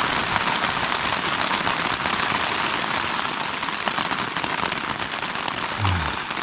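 Rain falling steadily on the fabric of a small tent, heard from inside as a dense hiss flecked with single drop ticks. Near the end a man's voice gives a brief low sound that falls in pitch.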